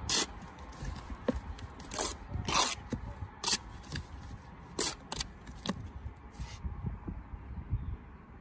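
A steel brick trowel scraping and spreading mortar as a brick is buttered: a series of short, sharp scrapes, the last about six and a half seconds in.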